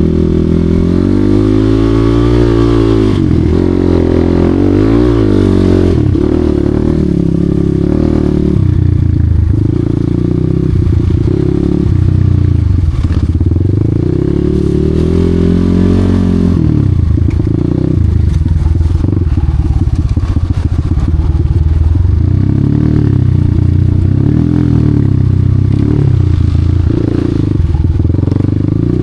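Enduro motorcycle engine revving up and down over and over, its pitch repeatedly rising and falling.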